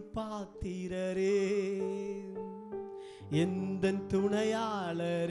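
Instrumental intro music of a Tamil Christian worship song: a wavering lead melody over held chords, punctuated by a few sharp hits.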